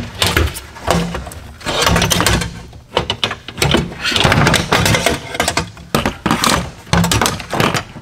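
A power midgate window regulator being wrestled out of a GMC Envoy XUV's midgate frame: irregular bursts of metal clattering, scraping and knocking.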